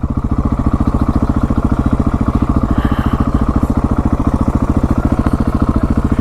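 Husqvarna 701 Supermoto's single-cylinder engine idling, with an even, rapid putting beat that holds steady.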